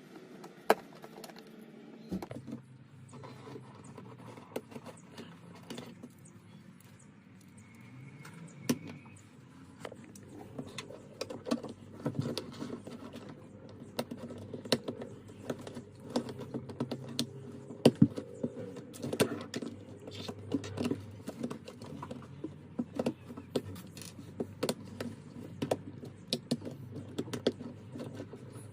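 Small plastic LEGO Technic pieces clicking and rattling as they are handled and pressed together, with irregular sharp clicks that come thicker after about ten seconds.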